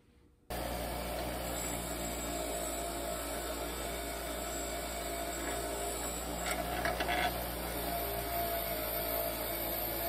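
A small machine running steadily with a low hum and a scraping, rasping noise, starting abruptly about half a second in, with a few light clicks a little past the middle.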